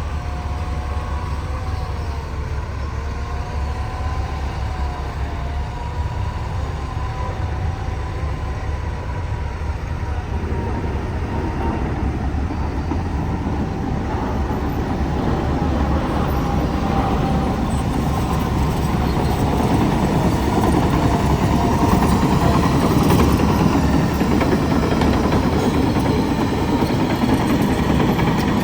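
Heavy diesel engine running with a steady low rumble and a wavering whine above it, growing gradually louder through the middle of the stretch.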